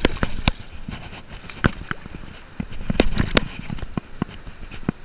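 A large fluke (summer flounder) thrashing and splashing in shallow surf water as it is landed and lifted out by hand, with irregular sharp splashes and knocks over the wash of the water.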